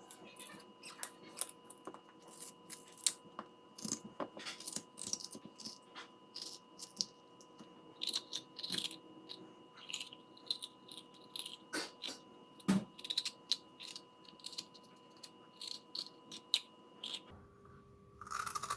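A white radish being hollowed out into a cup with metal utensils: a long run of irregular, crisp scrapes and clicks as the flesh is cut and scooped out, with one louder knock about 13 seconds in.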